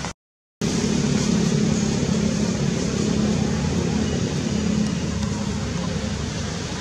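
Steady background noise with a low hum and no distinct events, cut by a half-second dropout to silence just after it starts.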